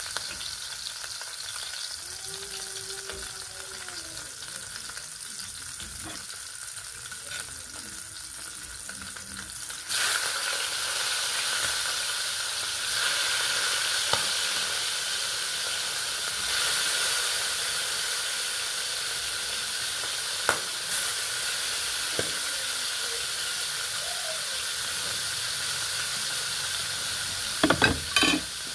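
Whole fish frying in hot oil in a pan: a steady sizzle that grows louder about ten seconds in, with a few sharp clacks near the end.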